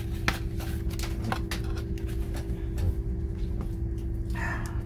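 Hands handling a white cardboard packaging insert: a few light clicks and taps, then a brief rustle of card near the end, over a steady low hum.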